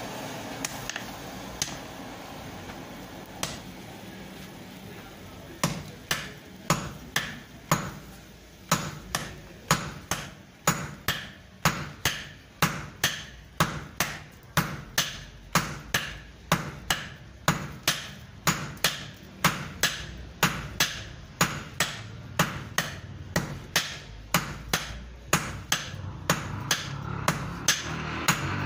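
Hand hammer forging red-hot iron on an anvil: a few scattered blows at first, then a steady run of sharp metal-on-metal strikes at about two a second.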